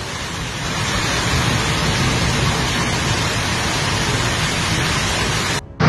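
Heavy rain pouring down in a steady, dense hiss that cuts off abruptly near the end.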